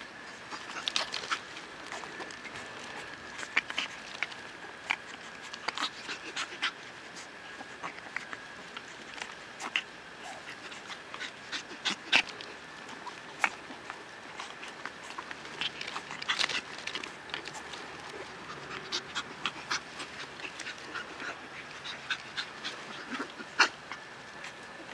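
Shih Tzu puppies panting and scuffling in play, with many short, sharp clicks and knocks scattered irregularly. A faint steady high tone sits in the background.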